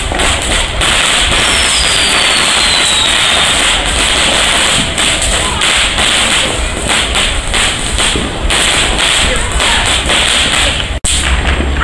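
Consumer ground fountain fireworks spraying and crackling, a dense stream of rapid pops and hiss, with a brief falling whistle a second or so in. The sound cuts out for an instant near the end.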